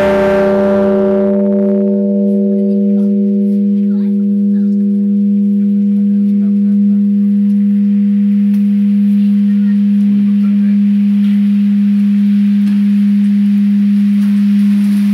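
Japanese temple bell (bonshō) ringing on after a single strike: its higher tones fade away over the first few seconds while a deep, steady hum holds on.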